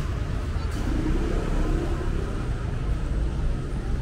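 City street ambience: a steady low rumble, with faint voices in the background about a second in.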